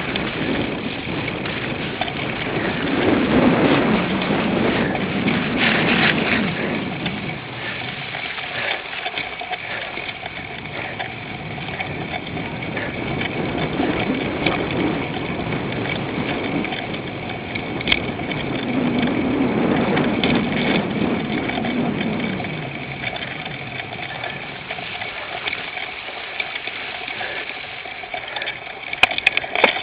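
Cyclocross bike being ridden hard over rough dirt and grass: tyre rumble and chain and frame rattle under wind rushing over the microphone, swelling and easing every few seconds. There are sharp clicks near the end.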